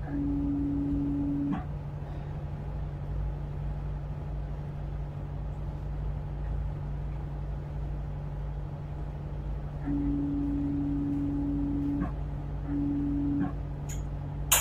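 Tugboat's diesel engine running with a steady low drone. A steady humming tone sounds over it three times, briefly at the start and again twice later on, with a click as each one starts and stops, and there are a few sharp clicks near the end.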